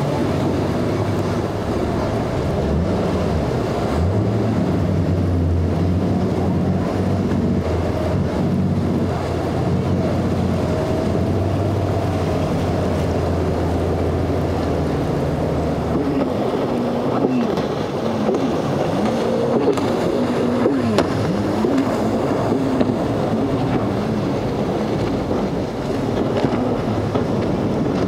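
Outboard engines on center-console boats running through rough inlet chop over the wash of water and wind. A steady engine drone holds for the first half, then in the second half the engine pitch swoops up and down as the throttle is worked over the waves.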